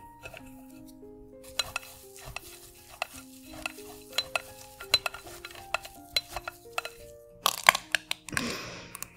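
Ingredients tapping and clicking into a glass bowl, over light background music with a simple melody. Near the end a squeeze bottle squirts ketchup with a short sputtering hiss.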